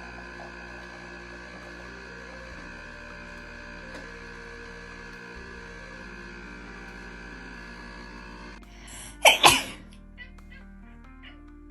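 Background music with sustained notes, broken about nine seconds in by two loud, quick bursts of noise close together, like a sneeze; sparser, quieter music follows.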